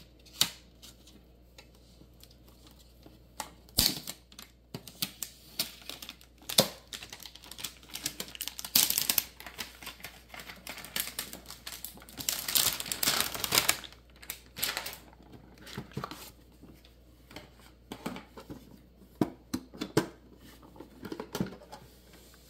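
A shrink-wrapped metal collector chest tin being unwrapped and opened: scattered sharp clicks and knocks from the tin and its latch, with two longer stretches of crinkling plastic wrap about nine and thirteen seconds in.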